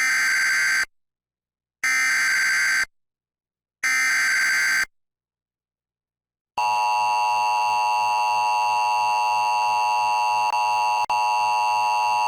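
Emergency Alert System broadcast: three one-second bursts of SAME header data tones about two seconds apart, then, about six and a half seconds in, the steady two-tone EAS attention signal (853 and 960 Hz). Together these mark the start of a new severe thunderstorm warning.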